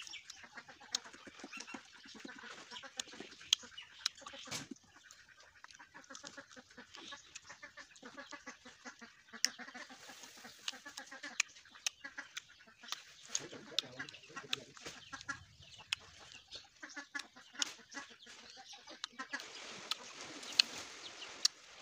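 Chickens clucking, with many sharp clicks and smacks of fruit being bitten and chewed close to the microphone.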